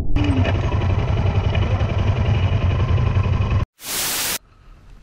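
Motorcycle engine running under way on a trail, a steady low drone that cuts off suddenly a little over three and a half seconds in. A short burst of even TV-static hiss follows.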